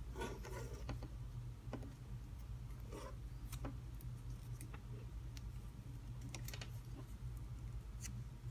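Tape being unrolled and wrapped around soldered wire joints: faint scattered crackles and clicks over a steady low hum.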